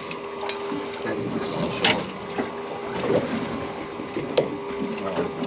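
Sound on a fishing boat at sea: a steady hum over water against the hull, with three sharp knocks of gear on the boat.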